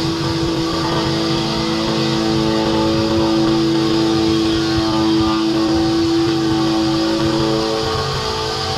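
Background music with guitar, sustained notes held steadily and shifting to a new chord near the end.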